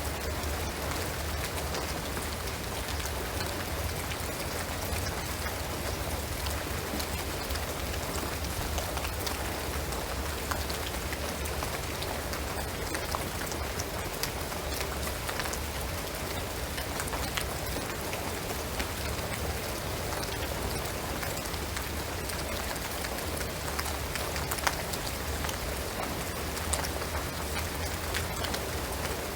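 Steady rain falling on a shingled roof and pine trees, an even hiss of countless drops with occasional sharper single drips, one standing out near the end. A steady low hum runs underneath.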